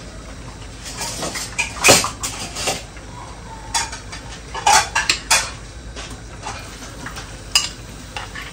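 A metal spoon clinking and knocking against a metal bowl, a scattered run of sharp clinks, as onion paste is scooped out.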